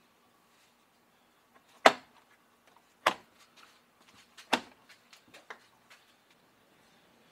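Jeep Wrangler JK's plastic front grille being pressed onto the front of the Jeep: three sharp knocks about a second and a half apart, the first the loudest, then a few lighter clicks.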